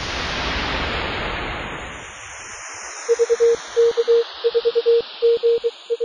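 Synthetic whoosh with a shimmering high hiss that swells and fades over the first two seconds or so. Then, about three seconds in, a single steady beep starts keying on and off in short and long elements in groups, like a Morse code sidetone.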